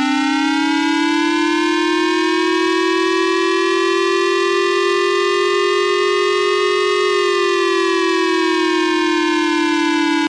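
Civil defence siren sounding an attack warning: a loud, steady wail that climbs slowly in pitch for about seven seconds, then falls, and cuts off abruptly.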